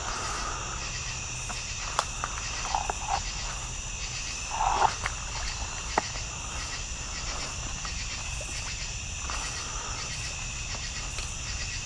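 Night chorus of insects such as crickets and katydids: a steady high-pitched drone with an even pulsing. It is broken by a few short knocks and rustles, the loudest about five seconds in.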